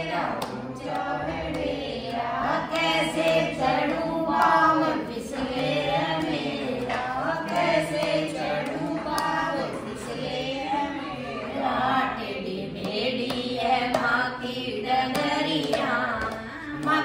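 A group of mostly women's voices singing a Hindu devotional hymn (bhajan) in unison, with hand-clapping keeping time.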